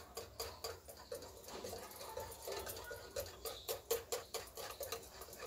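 Wire whisk beating gram-flour batter in a glass bowl: a quick, rhythmic clicking of the wires against the glass with wet squelches, about three to four strokes a second.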